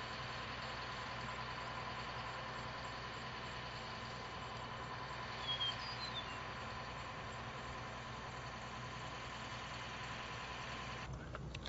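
Crane/bucket truck engine running steadily at idle, a constant hum with a steady high whine, which cuts off abruptly near the end. A short high chirp sounds about halfway through.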